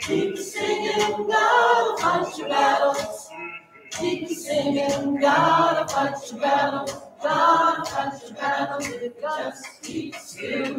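Choir singing a spiritual without accompaniment, in phrases a second or two long with short breaths between them.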